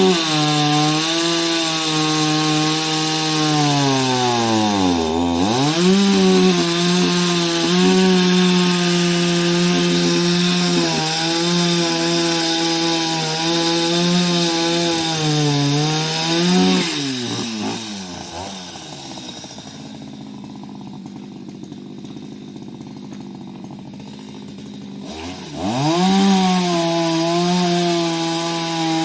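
Chainsaw cutting through the wood of the fallen tree, its engine held at high revs under load. It bogs down sharply and recovers about five seconds in, drops to a quieter idle for several seconds past the middle, then revs back up near the end.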